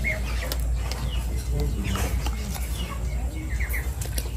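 Birds chirping in short, scattered calls, with a couple of quick chirps near the end, over a steady low rumble and a few small knocks.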